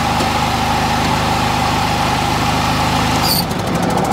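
Husqvarna LGT2654 lawn tractor running steadily with its rebuilt 54-inch mower deck engaged, test-mowing over small sticks. The engine note shifts about three seconds in.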